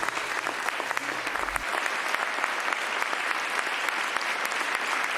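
Studio audience applauding steadily, a dense patter of many hands clapping. A low held note from the show's music dies away about a second and a half in.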